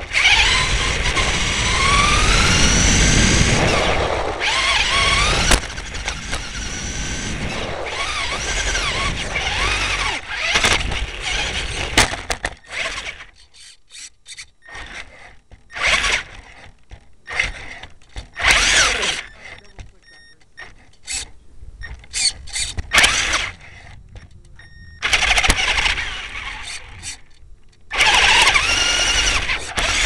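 RC car driven on asphalt, heard through a camera mounted on the car: its motor whine rises in pitch as it speeds up, over rough tyre and road noise. About halfway through it moves in short spurts with quiet pauses between them, then runs steadily again near the end.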